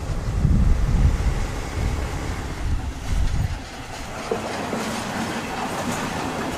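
DR class 172 railbus, a two-axle diesel railcar, passing close by. A low rumble for the first three seconds or so gives way to the hiss and clatter of its wheels on the rails as the car rolls past.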